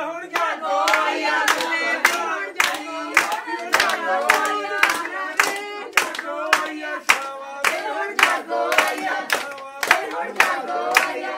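Singing to steady hand-clapping, the claps coming evenly about twice a second throughout the singing.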